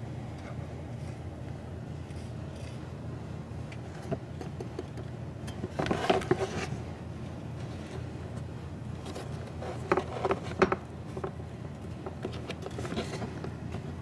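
Handling noise: the chipper's plastic housing and wiring are rubbed and scraped by hand in a few short bursts, about six, ten and thirteen seconds in. A steady low hum runs underneath.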